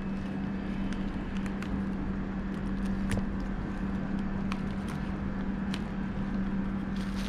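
Scattered light clicks and taps of small screws and parts being handled while the scooter stem is reassembled, over a steady low hum.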